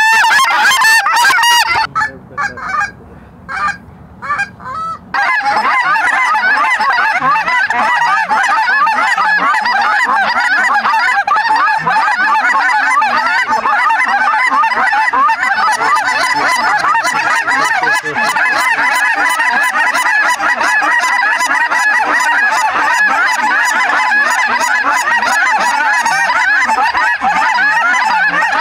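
A large flock of lesser Canada geese honking, many birds calling at once in a dense, continuous chorus as they circle and drop in close. The honking starts after a quieter stretch a couple of seconds in, where only a few separate calls are heard.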